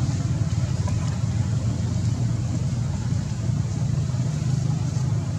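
Steady low engine hum, even in level throughout.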